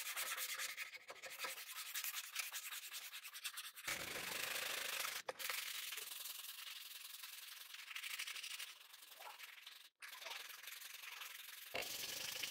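Steel knife blade being hand-sanded with sandpaper: rapid back-and-forth strokes make a dry, scratchy hiss. The sanding is taking the dark finish off the blade down to bright steel.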